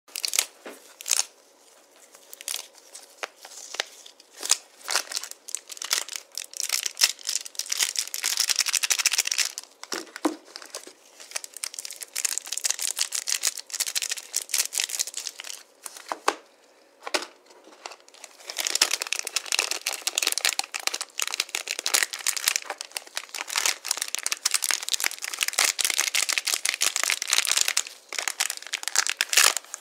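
Candy bar and cookie wrappers crinkling and tearing as hands handle and open them. The crackling comes in stretches with short quiet gaps, and is dense and loud through most of the second half.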